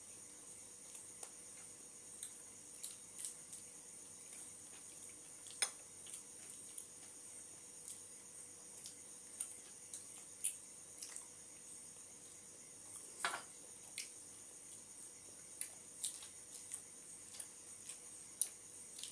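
Close-miked eating sounds: scattered short wet clicks, lip smacks and chewing as rice and chicken curry are eaten by hand and curry is sipped from small glass bowls. A longer slurp comes about two-thirds of the way through. A steady high-pitched hum runs underneath.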